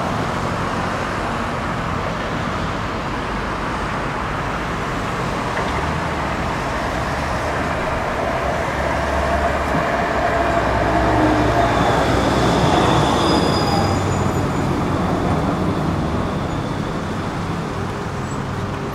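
A low-floor electric tram approaching along the track and braking into the stop over steady road-traffic noise. It grows loudest about two-thirds of the way through, with whining tones from its drive and brakes, then eases as it comes to a halt.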